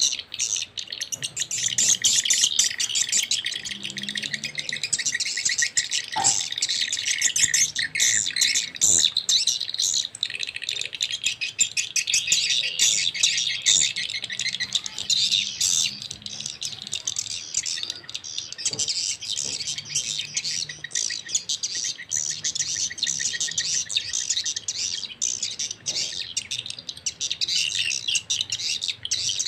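Recorded swiftlet calls, a swiftlet-farming lure sound, played through two small horn tweeters: dense, rapid, high-pitched chirping and trilling that never pauses. The two tweeters play different call tracks in stereo.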